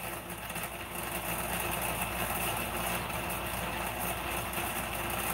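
A steady mechanical hum with a few faint low tones running under it, even and unchanging throughout.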